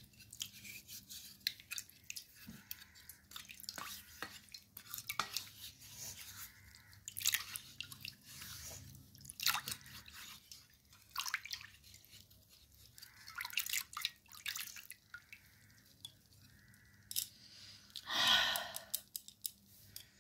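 Water splashing and dripping in a steel bowl as a broken terracotta saucer is rubbed and rinsed by hand: irregular small splashes and drips, with a longer splash near the end.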